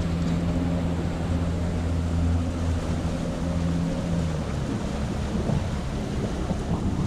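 Suzuki outboard motor running at low speed, a steady low drone, with water rushing along the hull. About four seconds in the drone thins out, leaving mostly water and wind noise.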